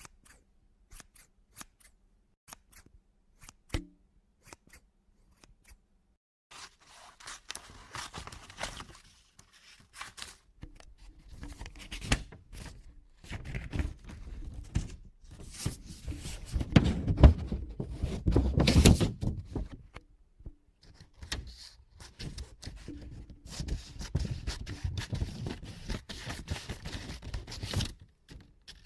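Scissors snapping open and shut with sharp, separate clicks at first. From about six seconds in they cut through paper in long, rasping strokes with blade clicks between them.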